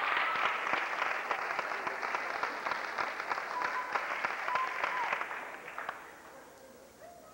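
Audience applauding, with a few short cheers, dying away about six seconds in.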